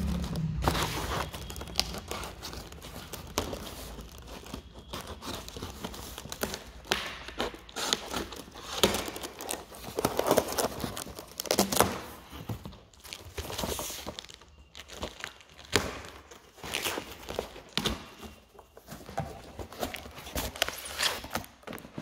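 Cardboard shipping package being opened by hand: its paper and plastic wrapping tearing and crinkling, with cardboard scraping and knocking, in irregular bursts.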